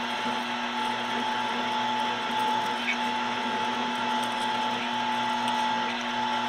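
1440K metal lathe running steadily with an even hum and a steady whine from the spindle drive, while a 59/64-inch drill bit in the tailstock is fed into a 316 stainless steel part.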